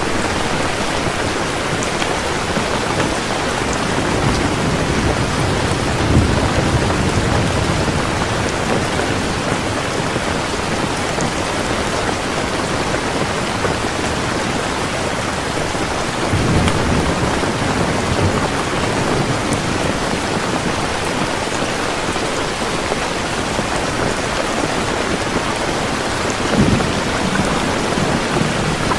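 Heavy rain falling steadily in a thunderstorm, with three low rumbles of thunder about ten seconds apart.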